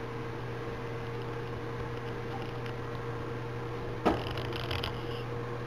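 Infrared electric fireplace running after being switched on, its blower giving a steady low hum. One sharp click about four seconds in.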